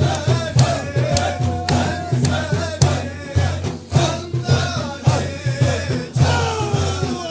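Naqshbandi Sufi zikr: voices chanting in gliding, sustained lines over a steady beat of about two strokes a second.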